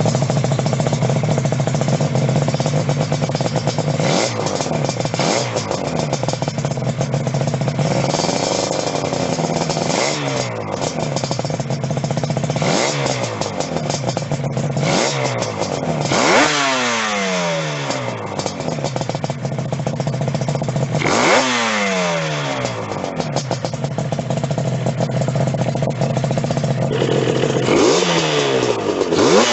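Yamaha RD350 two-stroke twin-cylinder engine running with repeated throttle blips, the revs rising sharply and falling back each time, with two longer revs past the middle.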